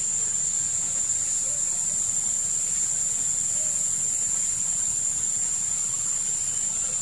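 Steady, high-pitched drone of insects, unbroken and even in level.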